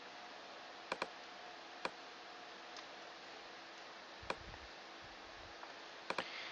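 Computer mouse clicking a few times over faint room hiss: a double click about a second in, single clicks near two seconds and just past four seconds, and another double click near the end.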